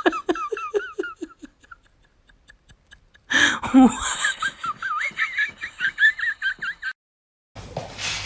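Laughter in two bouts. First comes a quick run of short pitched notes that fades out over about two seconds. After a pause, a longer, higher-pitched bout cuts off suddenly about seven seconds in.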